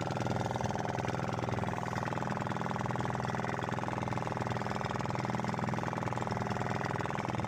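A small fishing boat's motor running steadily under way, a rapid even drone.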